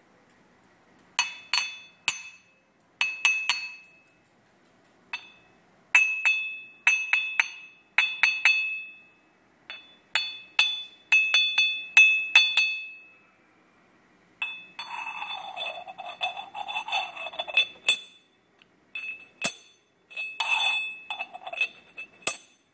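Clay lid of a red Yixing (purple-clay) teapot clinking against the rim of the pot in quick clusters of taps, each ringing with a clear high tone. Midway the lid is rubbed and rattled around the opening for a few seconds in a continuous scraping jingle. It is a sound test for whether the clay is genuine zhuni.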